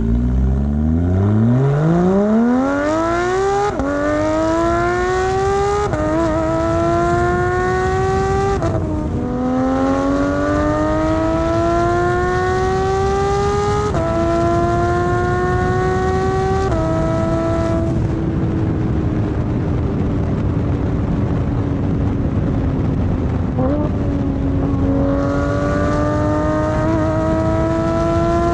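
2018 Porsche 911 GT3 RS flat-six through a Carrera Cup race exhaust, accelerating hard. The pitch climbs and drops at each of a string of quick upshifts. Midway it holds a steady, slowly falling note for several seconds, then a brief blip, and it pulls up through the revs again near the end.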